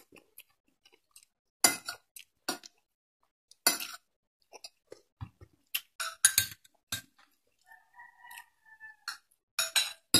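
Metal spoon and fork clinking and scraping against a glass bowl while eating, a string of sharp, uneven clinks.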